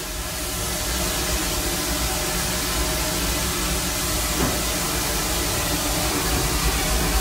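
Steam hissing over a steady low rumble inside the cab of a Vulcan Iron Works steam locomotive as the throttle is pulled open and it gets under way. The noise builds over the first second, then holds steady.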